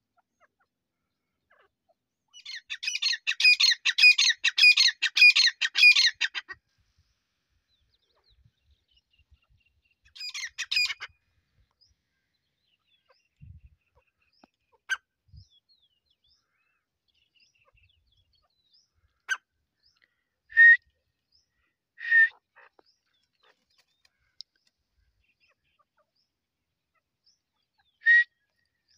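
Grey francolin calling: a loud, rapid run of harsh repeated notes lasting about four seconds, a shorter burst a few seconds later, then a few single short calls spaced out toward the end.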